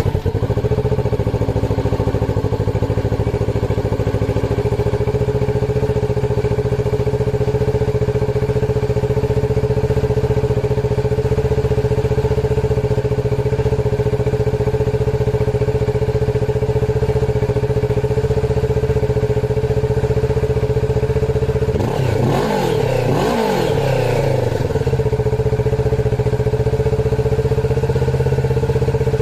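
Kawasaki Ninja 650's parallel-twin engine idling steadily, with one quick blip of the throttle about three-quarters of the way through that rises and falls back to idle within about three seconds.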